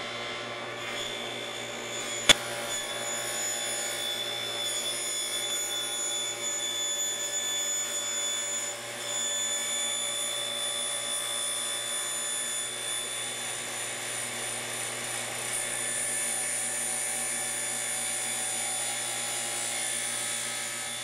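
Table saw running steadily as its spinning blade is raised up through the plywood base of a crosscut sled, cutting a kerf. There is one sharp click about two seconds in.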